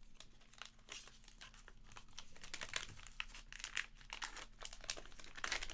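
Plastic card packaging crinkling and tearing in irregular crackles as trading cards are unwrapped by hand.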